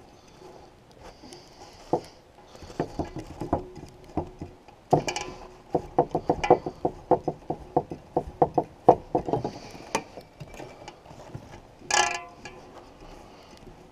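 Rubber-jacketed electrical cord being pulled hand over hand and dragged across a wooden table: a run of quick knocks and rubs, about four or five a second in the middle, with one louder knock near the end.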